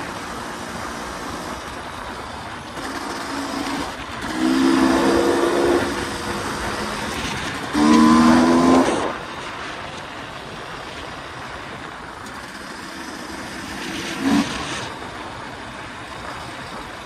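2023 KTM 300 EXC two-stroke dirt bike engine running while being ridden, its note swelling into two louder throttle bursts about four and eight seconds in.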